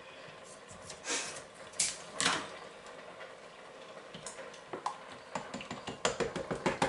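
Carton of passata cut open with scissors and handled, a few short rustling swishes in the first half. From about five seconds in, a fast run of clicks and glugs as the passata is poured and squeezed from the carton into the Instant Pot's inner pot.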